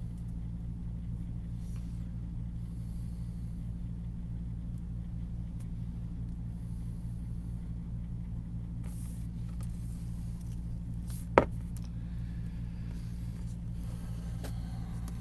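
Steady low hum, with one sharp click about eleven seconds in.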